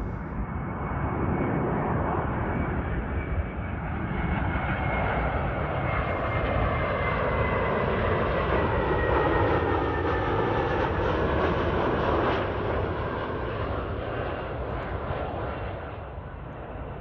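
Allegiant Air Airbus A320-214's CFM56 turbofan engines passing low overhead on final approach. The jet noise carries a high fan whine that slowly falls in pitch. It is loudest about ten seconds in, then fades as the airliner moves away toward the runway.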